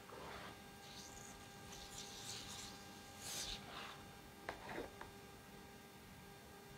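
Faint rustling of hands working soapy, wet wool fibres during wet felting, with a few soft clicks about four and a half seconds in, over a steady mains hum.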